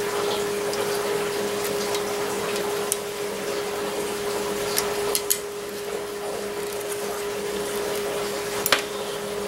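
Light metallic clicks of a small spring and poppet being worked into a hole in a cast-iron Farmall touch control housing, the loudest click near the end. A steady hum and hiss run underneath.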